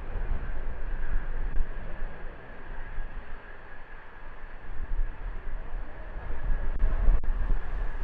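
Strong wind buffeting the microphone: a low rumble that swells and fades with the gusts.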